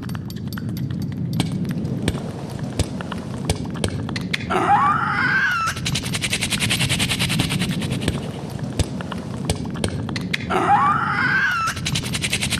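Live audience clapping and cheering, with high whoops that rise in pitch about every six seconds; the clapping swells to its thickest in the second half.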